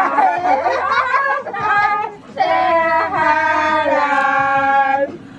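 A group of women singing loudly together, several voices on long held notes, with a short break about two seconds in.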